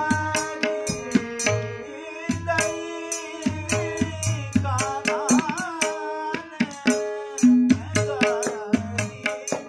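Man singing a classical Kumauni Holi song to his own harmonium, with tabla keeping a steady beat. The voice holds long notes and breaks into a wavering, ornamented phrase about five seconds in.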